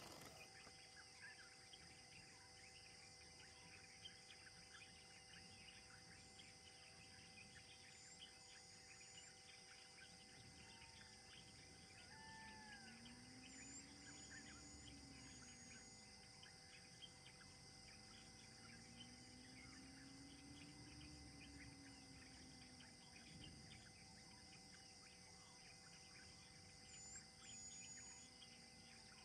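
Near silence: faint outdoor ambience with a steady insect hum and a few short, high bird chirps. A faint low drone rises and falls in pitch three times in the second half.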